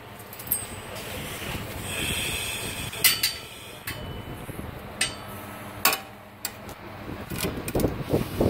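Small metal clicks and rattles from the steel pull rod and ball joint being fitted to an industrial sewing machine's foot pedal, about half a dozen sharp clicks spread through, over a low rustle of hands and handling.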